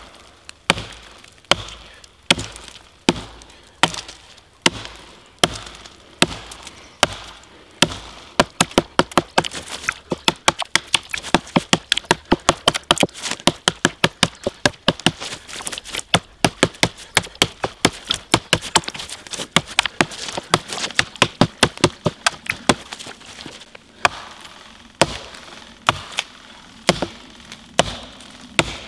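Fiskars Norden N10 axe chopping into a standing dead tree to fell it: sharp strikes about one a second at first, quickening to two or three a second through the middle, then slowing again near the end.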